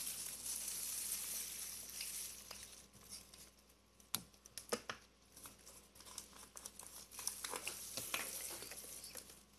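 A sticky glue and activator slime mixture being stirred with a stick in a mixing container. It starts with a soft hiss, then gives scattered small clicks and crackles.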